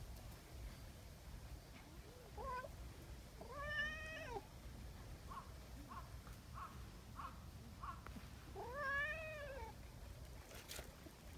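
Brown tabby cat meowing: two long meows that rise and fall in pitch, about a second each, with a short rising call before the first and a string of about five short chirping mews between them.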